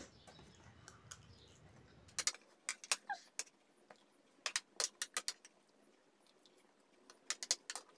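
Metal spoons clicking and clinking against plates of rice while eating, in scattered sharp clicks, several in quick clusters.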